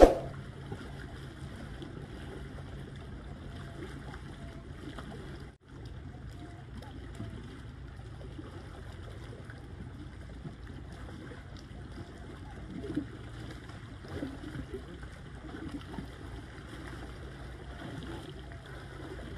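Small waves lapping and washing against shoreline rocks, over a steady low rush of wind and surf. A short sharp ring sounds right at the start, and a few louder splashes come a little past the middle.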